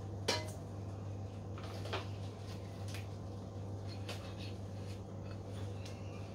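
A few light knocks and scrapes as a ceramic plate and a silicone spatula touch a stainless steel mixing bowl while softened butter is scraped in. The sharpest knock comes just after the start, over a steady low hum.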